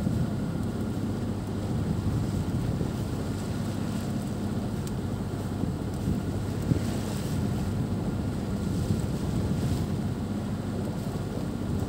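Wind buffeting the microphone in a steady low rumble on a sailboat under way, with the sea washing past the hull.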